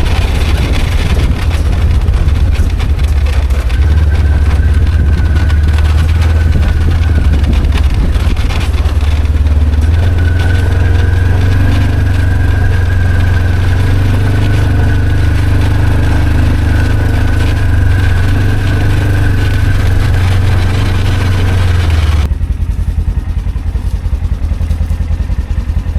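Side-by-side UTV engine running while riding, a loud low drone with a steady whine over it for much of the time. Near the end the whine and the upper sound fall away, leaving a lower, quieter run as the machine eases off.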